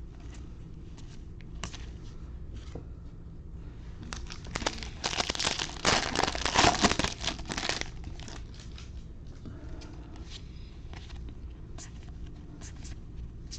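Baseball card pack wrapper crinkling and tearing as the pack is opened, loudest for about three seconds in the middle, with light clicks and rustles of cards being handled around it.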